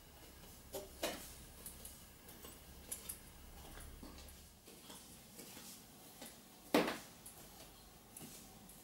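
Camera handling noise: a few light knocks and clicks as the camera is picked up and moved, with one louder knock near the end.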